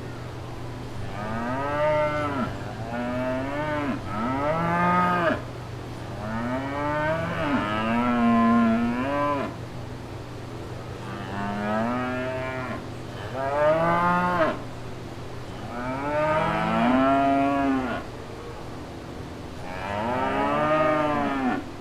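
Cows mooing over and over: about nine drawn-out moos in quick succession, each one rising and then falling in pitch. A steady low hum runs underneath.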